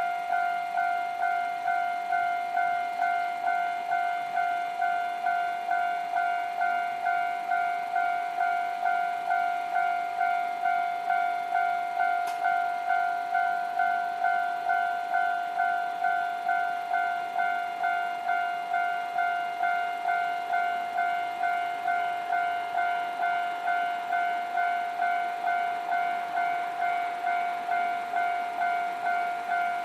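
Japanese railway level-crossing warning bell ringing steadily, about two strikes a second, each a bright two-tone ding that fades quickly: the crossing signal warning that a train is approaching.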